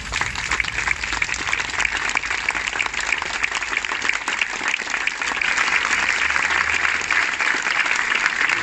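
A crowd applauding: a long, steady round of many hands clapping.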